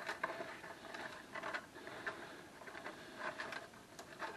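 Faint, scattered light taps and rustling of a small ceramic bowl and crinkly aluminium foil as frozen butter, stuck to the bowl, is shaken out into a foil packet.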